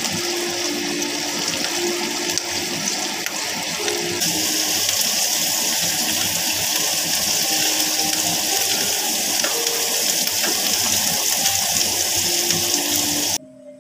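Hamburg steak patties frying in oil and sauce in a pan: a steady, loud sizzle that turns brighter about four seconds in and stops abruptly near the end.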